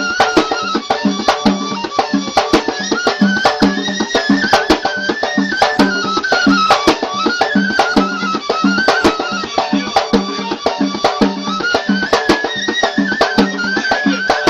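Traditional Yafa'i Yemeni folk music: a reed pipe (qasaba) playing a winding, reedy melody over a quick, steady drum beat.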